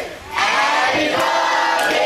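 A crowd of children and adults cheering and shouting together, rising after a brief lull about half a second in.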